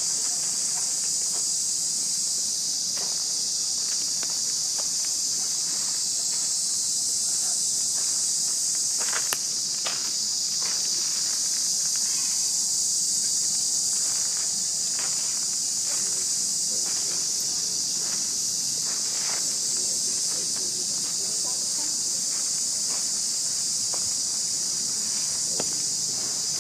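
A steady, high-pitched drone of calling insects, with faint scattered clicks beneath it.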